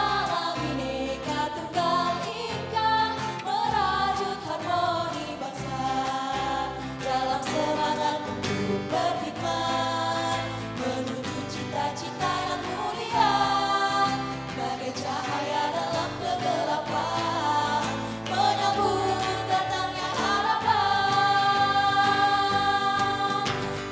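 A song with sung vocals, voices joining in chorus, over a full instrumental backing.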